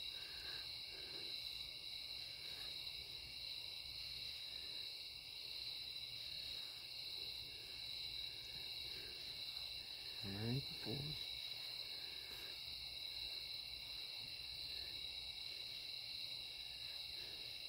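Night insects, crickets among them, chirping steadily in a high chorus, with a faint short chirp repeating about once a second. A brief low human voice is heard about ten seconds in.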